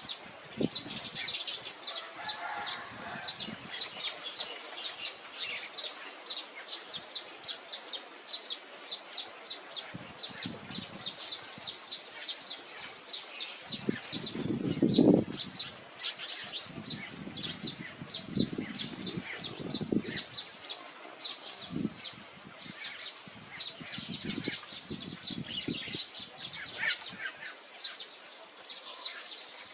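Weaver birds chirping: a steady run of short, high chirps, about two or three a second, with a few low rumbles near the middle, the loudest about halfway through.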